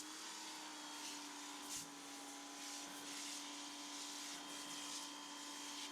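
A small motor running steadily: a constant hum with an even hiss over it, and a thin high whine that joins about four and a half seconds in.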